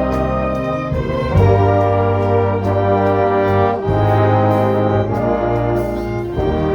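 Orchestra with brass (trumpets and trombones) playing slow, sustained chords over strong low bass notes, the chord changing every second or two.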